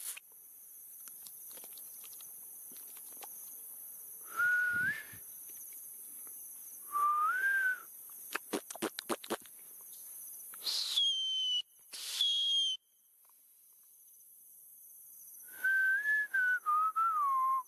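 A person whistling several short, wavering notes a few seconds apart, over a steady high buzz of insects. A quick run of clicks comes about halfway through.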